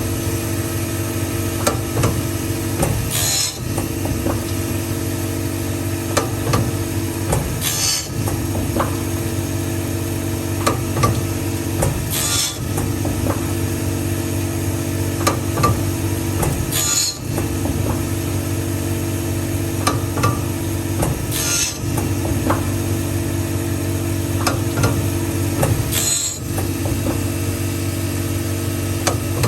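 Automatic CNC saw-blade grinder sharpening a carbide-tipped circular saw blade: a steady motor hum, with a short, high grinding hiss about every four and a half seconds as it works through the teeth.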